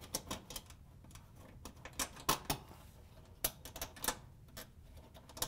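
Light, irregular metallic clicks and clinks: crimped ring terminals being pulled off a range terminal block's threaded stud by a gloved hand.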